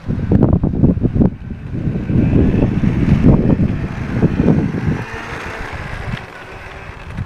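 Wind buffeting the microphone in irregular gusts, heaviest for the first five seconds and then easing.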